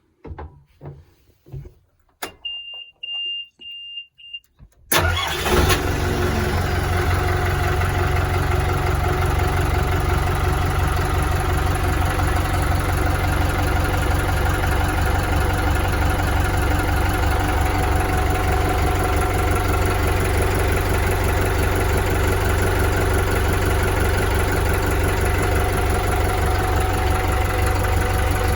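Boat inboard engine starting about five seconds in and settling straight into a steady idle. Before it, a few clicks and a brief high-pitched electronic beeping for about two seconds.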